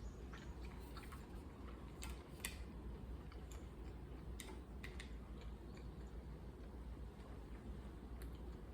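Faint eating sounds: a few scattered soft clicks and taps from chewing and utensils, over a low steady hum.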